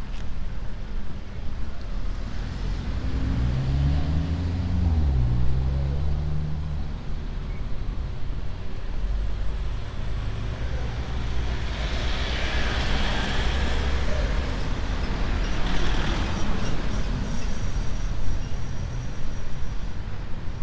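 Road traffic on a town street: car engines and tyres going by, with one engine's note rising and then falling a few seconds in, and vehicles passing close around the middle.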